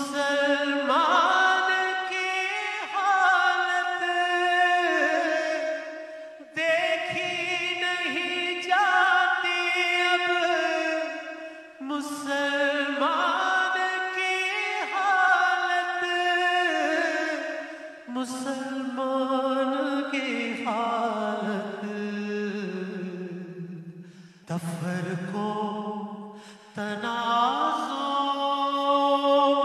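A man singing a naat, a devotional song in praise of the Prophet, into a microphone: long held phrases with a wavering, ornamented pitch, each several seconds long and broken by short pauses for breath.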